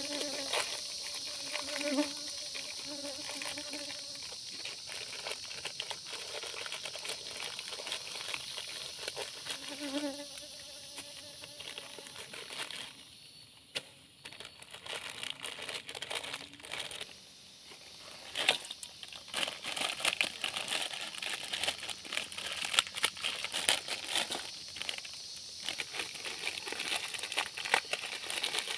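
Steady high-pitched insect chorus of the tropical forest, with a fly buzzing close by in short spells in the first half. Rustling and crinkling handling noises come more often in the second half.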